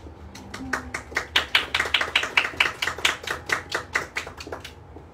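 Hand clapping from a few people: a quick, even run of claps, about five a second, that stops shortly before the end.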